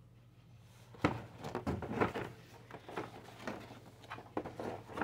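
Cardboard clock box being handled and moved: a run of irregular rubs, scrapes and light knocks starting about a second in, the loudest near the start of the run.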